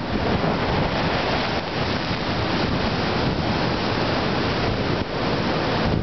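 Storm surf at high tide breaking and washing up the beach, a steady rush of water and foam, with wind buffeting the microphone.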